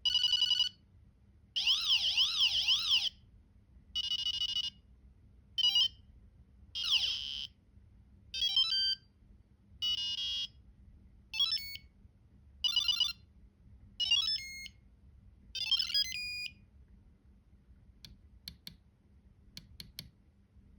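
Small electronic buzzer driven by an ESP32/Arduino microcontroller, playing a string of short synthesized sound effects one after another: beeps, a warbling siren-like tone, fast trills and quick rising and falling pitch sweeps, each lasting up to about a second and a half with short pauses between. Near the end only a few faint clicks are heard.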